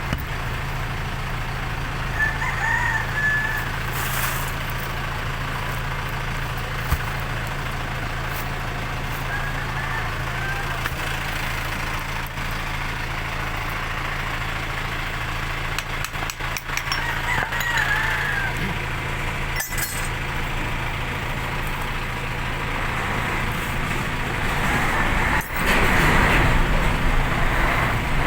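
A steady engine-like hum runs underneath, and a rooster crows twice, a couple of seconds in and again about halfway through. Scattered clicks of work are heard, and the noise swells near the end.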